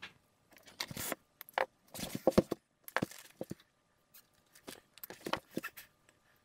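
Thin electrical wires being handled and sorted by hand: irregular rustles, scrapes and clicks of plastic insulation and a small hand tool, thinning out to a few faint ticks near the end.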